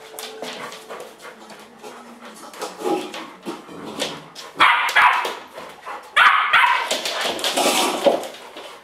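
Bouvier des Flandres dogs, a nine-week-old puppy and its mother, barking at each other in play. The barks come in two loud spells, about four and a half and six seconds in, with quieter ones before.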